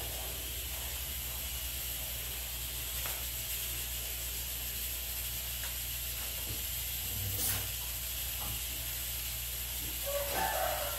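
A steady hiss with a low hum underneath, broken by a few faint knocks and taps. A short wavering voice-like sound comes near the end.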